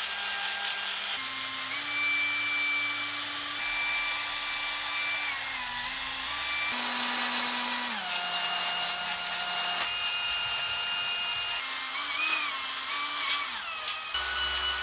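Cordless drill spinning a three-stone cylinder hone inside an oiled cast-iron engine bore: a steady motor whine whose pitch steps up and down as the load and trigger change, over the hiss of the stones on the bore wall. The hone is set for a light pass, just enough to break the glaze for new piston rings. Near the end there are a few sharp clicks and the whine wavers.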